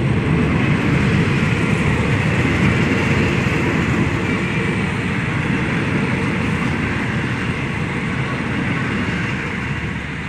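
Passenger coaches of a departing express train rolling past close by: a steady rumble of steel wheels on the rails that fades near the end as the last coach goes by.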